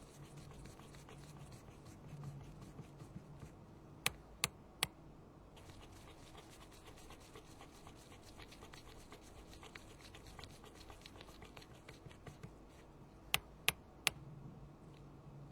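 Small hand tools scratching and ticking lightly against a phone during repair work, with two quick sets of three sharp clicks, one about four seconds in and one near the end. A steady low hum runs underneath.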